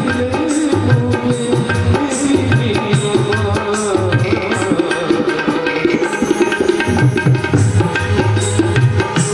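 Devotional bhajan music: harmonium and keyboard playing under a hand drum that beats a steady rhythm.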